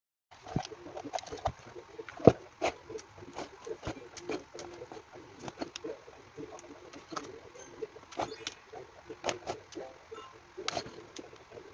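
Irregular clicks, knocks and squeaks of a scooter's plastic control-box parts being handled and taken apart, with one sharper knock about two seconds in.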